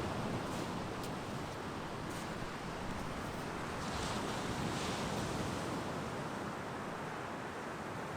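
Sea waves washing steadily onto the beach, with wind on the microphone.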